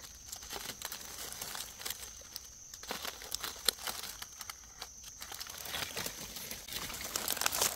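Dry fallen leaves crackling and rustling in irregular small snaps as hands dig through leaf litter and handle freshly cut mushrooms.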